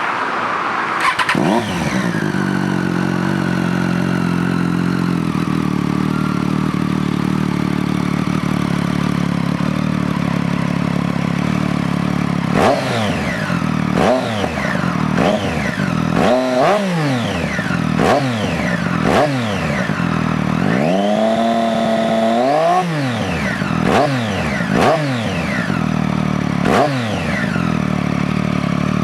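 Triumph Street Triple R's three-cylinder engine breathing through a Two Brothers S1R exhaust with the dB killer removed. It idles steadily, settling in the first couple of seconds, then from about halfway through the throttle is blipped again and again: quick revs up and back down, with one longer held rev about two-thirds of the way in.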